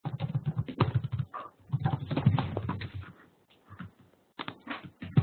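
Computer keyboard typing: a quick run of keystrokes for about three seconds, then a few scattered taps.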